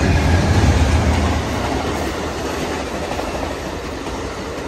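Passenger train passing: the low rumble of the lead GE P42 diesel locomotives is loudest for the first second or so, then gives way to the steady, slowly fading noise of the double-deck Superliner cars rolling by on the rails.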